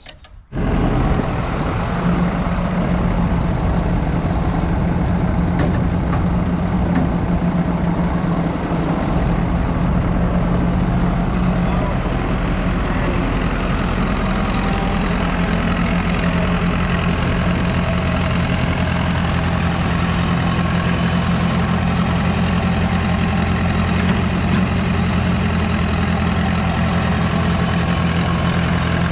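Excavator's diesel engine running steadily, cutting in abruptly about half a second in.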